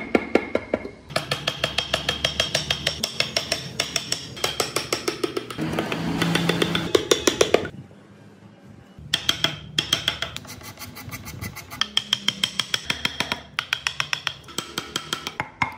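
Repeated strikes of a mallet on a long steel carving gouge, cutting into solid wood, about four sharp taps a second with a slight metallic ring. The tapping stops for a moment about halfway through, then starts again.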